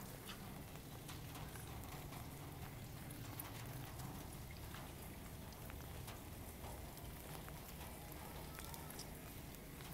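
Kittens chewing raw chicken scraps, with faint irregular crunching clicks over a steady low background rumble.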